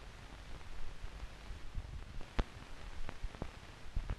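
Film crew's equipment handling noise while a take is being set up: scattered clicks and knocks over a low rumble, with a sharper knock about two and a half seconds in and a few more near the end.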